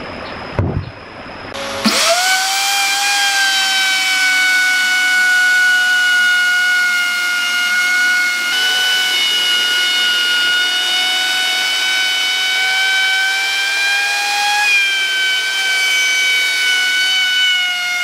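Handheld electric wood router spinning up about two seconds in, then running with a steady high whine as it cuts along the edge of a solid log slab, its pitch shifting slightly a couple of times under the load of the cut. A few knocks come before it starts.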